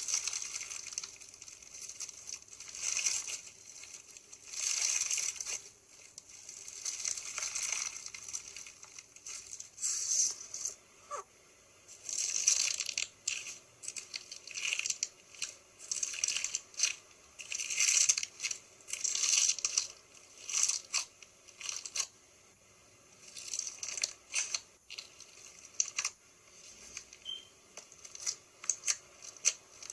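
Crunchy slime squeezed and pressed by hand, crackling and popping in repeated bursts: some last a second or more, others are short quick clicks.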